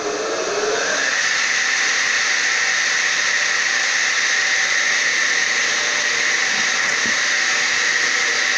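Circular saw's electric motor and blade finishing a soft start: the pitch rises and levels off about a second in, then runs steadily with a high whine and a rushing hiss. It is idling at reduced power, its star point fed through choke coils, drawing about 2 amps.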